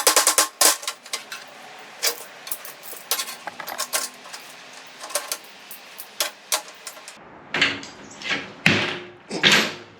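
Sheet-metal pieces and hand tools clinking and tapping against each other in a quick, irregular run of light metallic clicks. From about seven seconds in, a few louder rough scraping swells follow.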